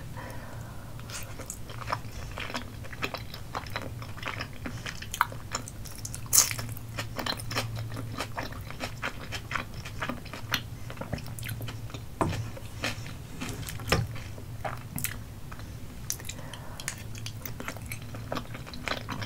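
Close-miked mouth sounds of chewing chewy Korean rice cakes (tteokbokki) in a sticky sauce: a run of wet clicks and smacks at uneven intervals.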